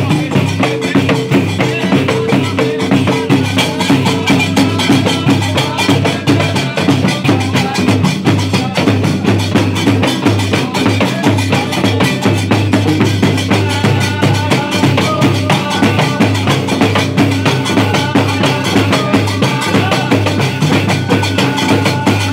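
Dakka Marrakchia percussion ensemble playing live: large drums and hand-struck drums pounding out a dense, fast rhythm, with men's voices chanting over it.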